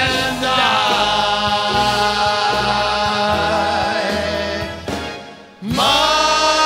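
Male singers holding long notes in harmony over a live swing band. The music fades down about five seconds in, then cuts into another song that opens on a loud held note.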